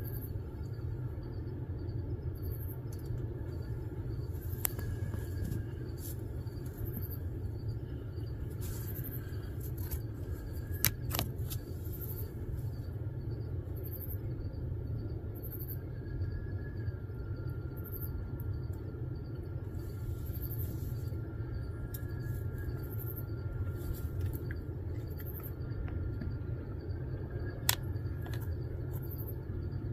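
Steady low outdoor rumble with faint, repeated high chirps and a few sharp clicks.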